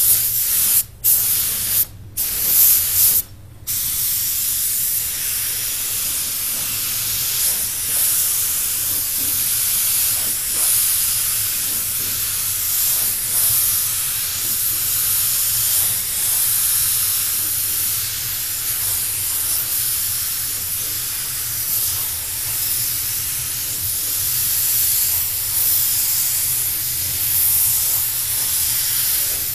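DeVilbiss TE20 gravity-feed spray gun hissing with compressed air as it sprays paint: four short trigger pulls in the first few seconds, then one long unbroken spray pass.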